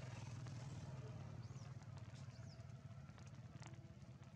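Faint outdoor ambience: a steady low hum with two short, high, arching chirps about a second and a half and two seconds in.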